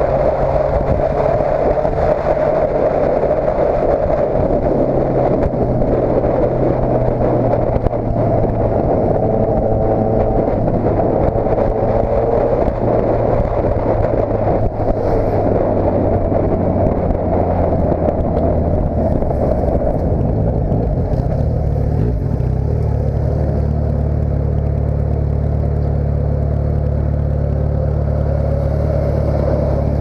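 Motorcycle engine and exhaust under way at road speed, the note rising and falling with the throttle. About two-thirds through it eases off and settles into a steady idle.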